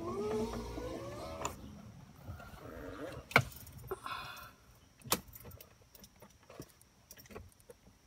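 A short rising whine, then scattered sharp metallic clicks and clinks, the loudest about three and a half seconds in and another about five seconds in.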